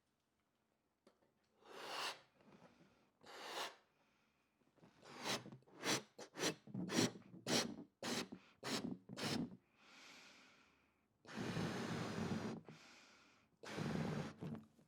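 Person blowing breaths into a balloon to inflate it: two long blows, then a quick run of about eight short puffs, then longer blows again.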